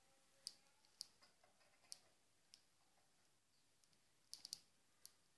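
Sharp little clicks and taps from European goldfinches pecking at crumbled broccoli on a person's palm: single taps a second or so apart, then a quick run of three about four seconds in, over near silence.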